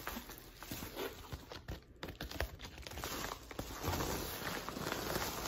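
Padded paper mailer crinkling and rustling as it is handled and torn open, the crackling getting louder and denser over the last second or so.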